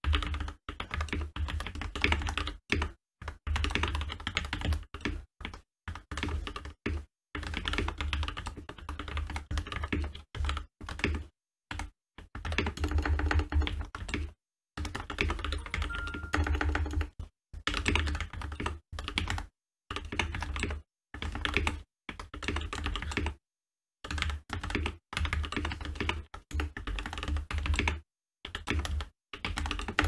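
Fast typing on an Epomaker GK87 mechanical keyboard fitted with hand-lubed Gateron Yellow linear switches: dense runs of keystroke clacks, broken by brief pauses.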